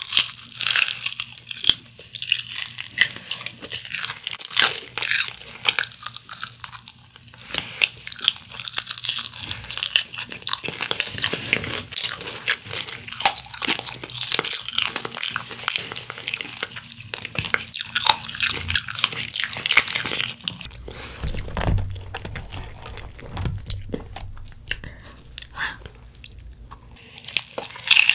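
Close-miked crunching and chewing of Kyochon Honey Combo fried chicken, the crisp glazed coating crackling with each bite and chew. Louder bites come at the start and again near the end.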